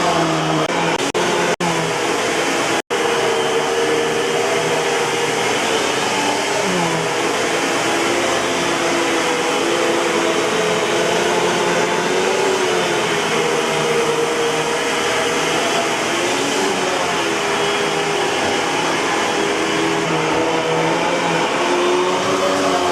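Eureka Boss 6833B canister vacuum cleaner running steadily, its motor pitch drifting a little up and down. The sound breaks off for an instant a few times in the first three seconds.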